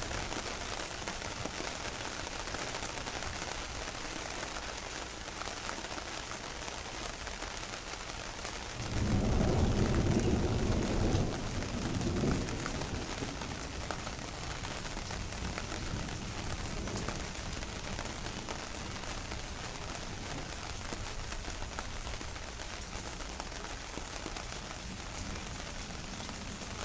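Steady rain falling, with a low rumble of thunder about nine seconds in that lasts a couple of seconds and gives one last smaller rumble shortly after.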